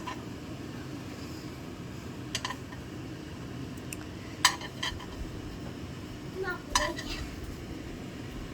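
Kitchen utensil clinking against a plate and frying pan as pan-fried tofu is moved onto a plate: a few sharp clinks, the loudest about four and a half seconds in, over a steady low hum.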